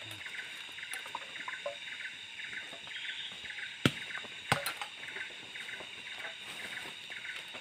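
Insects chirping in a steady, fast-pulsing chorus, with two sharp clicks a little over half a second apart about four seconds in.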